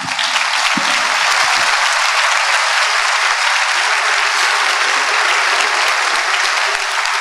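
An audience applauding, steady and sustained, after a speaker finishes.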